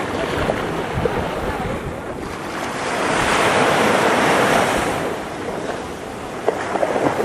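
Caribbean surf on a white-sand beach: a wave breaks and washes up the shore, swelling to its loudest about three to five seconds in and then ebbing, with a few sharp ticks near the end.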